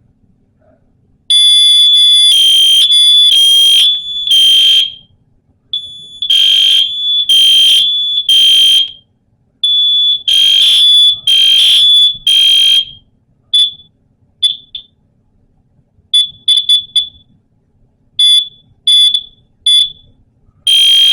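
Fire alarm sounder blaring a loud, high-pitched tone, pulsing about once a second in long runs that are switched on and off abruptly, then giving short chirps in quick clusters as it is switched on and off again.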